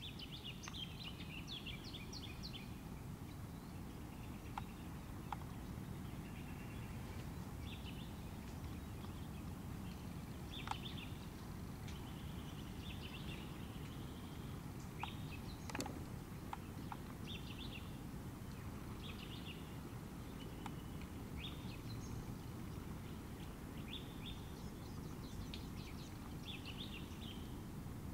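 Birds chirping in short, scattered phrases over a steady low background rumble, with a few faint clicks.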